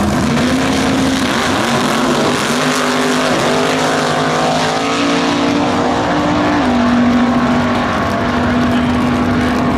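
Two vintage drag cars, a front-engine dragster and a Crosley-bodied drag car, launch and run down the strip at full throttle. The engine note is loud, gliding and stepping in pitch as they pull through the run.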